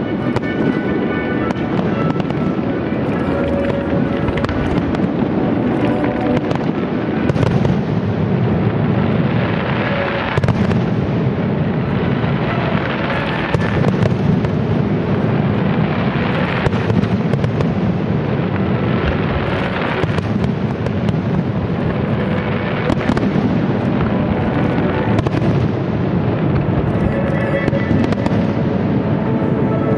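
Fireworks display: a dense, continuous run of crackling and bangs from ground-fired comets and aerial shell bursts, with music playing underneath.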